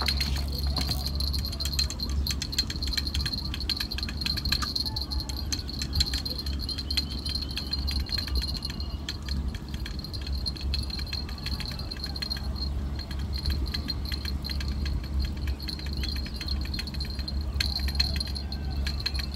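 Fishing gear jingling and rattling as rods and tackle are packed up, a run of light metallic clicks throughout, over a steady high-pitched whine and a low hum.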